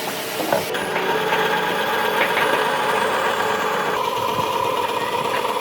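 A woodworking power tool's motor running steadily, with a sharp change in its tone about a second in and again near four seconds in.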